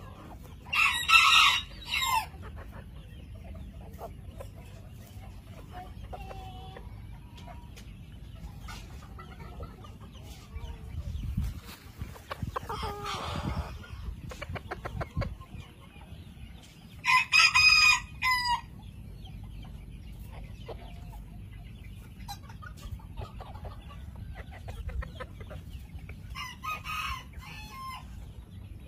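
Japanese bantam rooster crowing three times, each crow about a second and a half long, with softer clucking between the crows.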